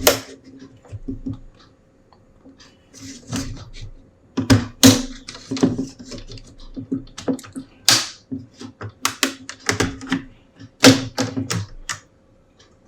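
Plastic screen bezel clips on an ASUS ROG GX501VS laptop snapping loose as a plastic pry tool is worked along the edge: an irregular run of sharp clicks and snaps with short scrapes of plastic on plastic.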